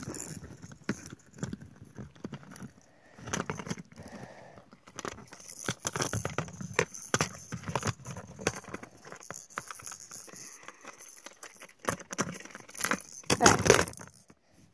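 Irregular clicks, scrapes and rattles of hard plastic and metal: a lure's treble hook caught in a clear plastic tackle box being worked loose by hand, with a louder clatter near the end.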